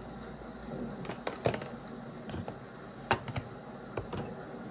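Light clicks and taps of makeup items being handled, put down and picked up: about half a dozen sharp ticks, the loudest about one and a half and three seconds in, over a steady hiss of a rain soundtrack.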